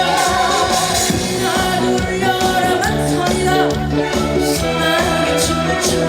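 Korean trot song with band backing and singing, playing continuously.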